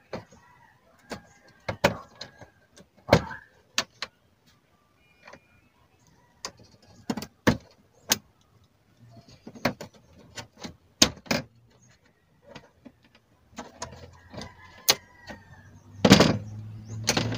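Irregular sharp clicks and knocks of wire connectors being unplugged from an LED TV's circuit boards and tools and parts handled against its metal back panel, with a louder clatter near the end.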